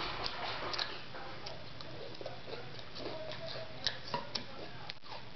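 Metal spoon clinking and scraping in a cereal bowl: light, irregular clicks, a few at a time, over a faint steady hiss.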